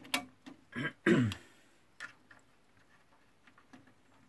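A few sharp clicks from hands handling the tape deck's parts. About a second in comes a short throat-clearing sound with a falling pitch, the loudest thing here. Then a single click and some faint ticks.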